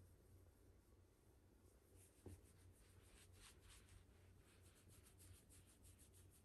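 Faint rustle of a hand rubbing a Shiba Inu's fur in quick repeated strokes, starting about two seconds in, with a soft bump just as it begins.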